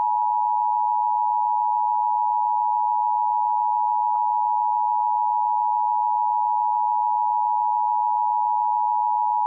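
Emergency Alert System attention signal: a loud, steady two-tone alarm, 853 Hz and 960 Hz sounded together. It is the signal that an emergency broadcast message is about to follow.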